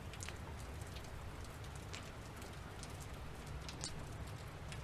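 Steady rain ambience, a continuous patter with a low rumble underneath and scattered sharp ticks.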